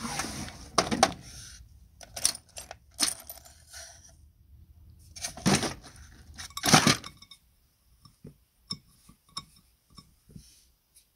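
Loose metal screws, washers and bolts clinking and rattling as a hand pulls open a plastic parts drawer and rummages through it, in irregular clattering bursts. Near the end, a few light, separate metallic clicks.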